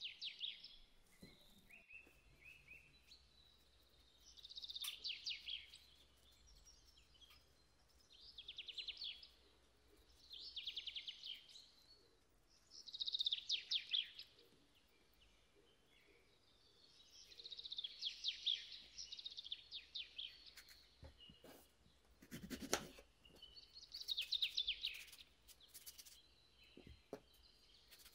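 A bird chirping in repeated short bursts of rapid, high-pitched chirps, one every two to three seconds, with a single sharp knock late on.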